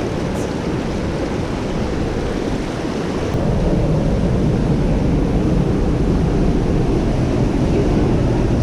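Steady rushing of a mountain creek's water, a dense low noise that gets louder about three seconds in.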